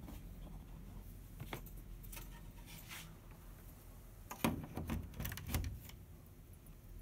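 Mains power plug pushed into a wall socket: a few faint handling clicks, then a cluster of plastic clicks and knocks about four and a half seconds in as the plug seats.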